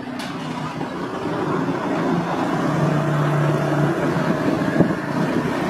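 Street traffic: a motor vehicle's engine passing close by, growing louder over the first few seconds, with a steady low hum from the engine in the middle.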